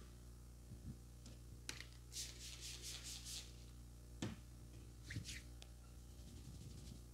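Hands massaging a man's head, faint overall: a quick run of about six short rustling strokes through the hair about two seconds in, two more a little after five seconds, and a couple of sharp single taps, over a steady low hum.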